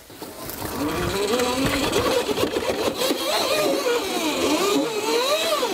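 Electric motor of a Cake Kalk INK electric dirt bike whining under load on a steep dirt climb, its pitch swinging up and down as the throttle is worked. The rear tyre scrabbles through mud and leaves underneath.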